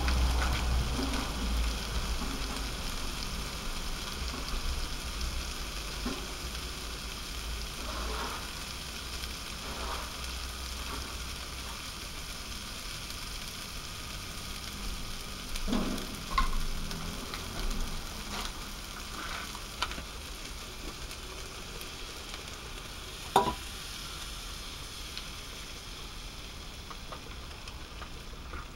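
Rice and kabanos sausage sizzling steadily in a frying pan on a portable gas stove, with a few short knocks, the loudest about two-thirds of the way through.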